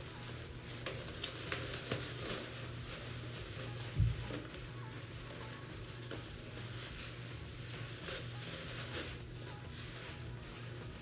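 Thin plastic bags and disposable plastic gloves rustling and crinkling as a bag is twisted and knotted shut, with a dull thump about four seconds in.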